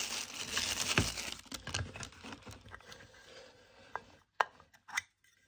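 Cellophane wrapping crinkling as it is pulled off a small plastic herb grinder, then a few separate sharp plastic clicks near the end as the grinder is handled.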